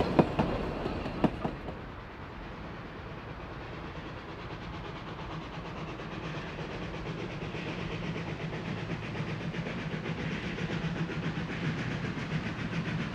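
Wheels of passing narrow-gauge railway carriages clicking over rail joints for the first second or so, then fading. After that an NA class narrow-gauge steam locomotive is heard approaching, growing gradually louder with a steady low hum.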